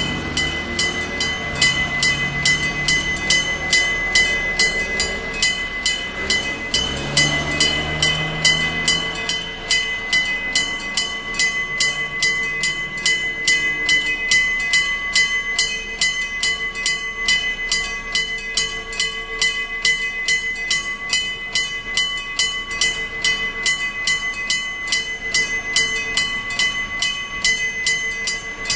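Electric bell of a railway level crossing ringing in a steady, evenly paced rhythm throughout. A train passes in the first several seconds, its motor tones rising and then fading out by about ten seconds in.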